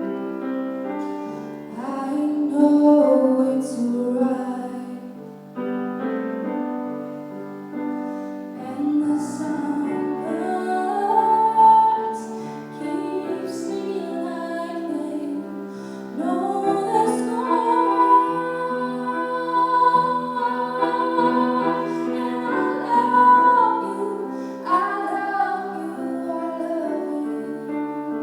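A female voice singing a slow song with piano accompaniment, holding some long notes.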